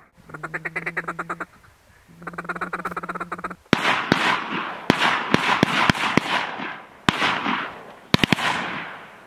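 Duck quacking in two quick runs of rapid, evenly spaced notes. Then a large flock of ducks and geese calls all at once, loud and dense, with sharp cracks scattered through it.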